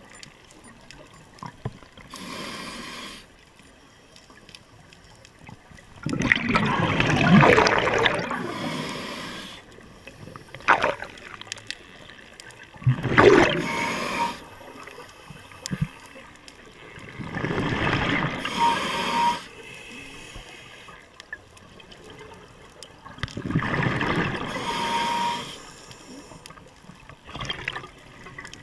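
Scuba diver breathing through a regulator underwater: exhaled bubbles rushing out in bursts every five seconds or so, with quieter hiss between breaths.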